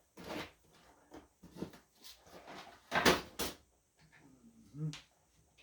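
Rummaging through a stash of small hardware: a few separate clattering knocks and rattles of parts and containers being handled, the loudest about three seconds in.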